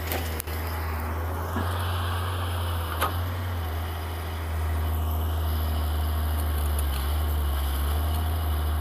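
Diesel engines of a Tata Hitachi crawler excavator and a tipper dump truck running steadily during loading, a constant low drone, with a sharp knock about three seconds in.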